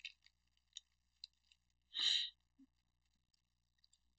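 A person takes a short, sharp breath through the nose about two seconds in, the sniffle of someone with allergies. A few faint light clicks come before it.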